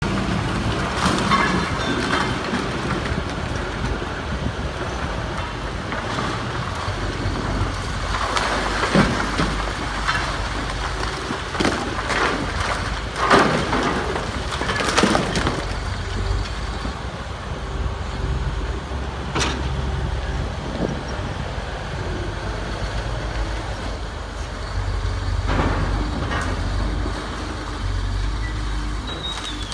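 Komatsu hydraulic excavator's diesel engine running steadily as it demolishes a stone building, with cracks and crashes of breaking masonry and timber, bunched most heavily in the middle.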